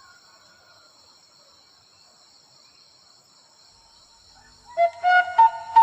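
Faint, steady high-pitched chirring of insects. About five seconds in, a loud flute melody of background music comes in over it.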